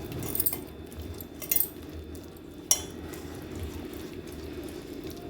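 Masala paste being stirred and mixed in a bowl, with three sharp clinks against the vessel over a steady low hum.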